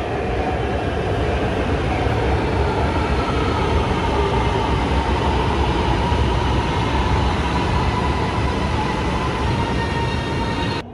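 Electric metro train of Lahore's Orange Line pulling into an elevated station: steady rolling and running noise with a faint whine, cutting off suddenly near the end.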